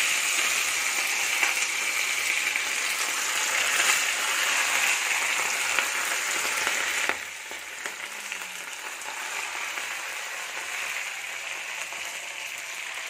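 Spice-coated fish pieces deep-frying in hot oil in a frying pan: a loud, steady sizzle with light crackles, dropping suddenly to a quieter sizzle about seven seconds in.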